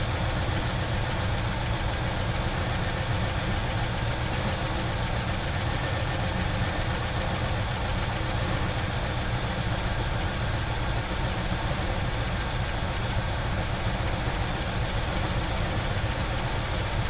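1976 Chevy Blazer's engine idling steadily, heard up close at its Holley 600 four-barrel carburetor, running smoothly with a newly installed fuel transfer tube.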